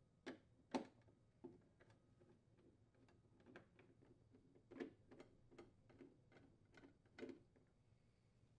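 Faint clicking and ticking of a nut driver turning out hex-head screws from a refrigerator's plastic air duct. The clicks come irregularly, the loudest a little under a second in, then about two a second for a few seconds near the end.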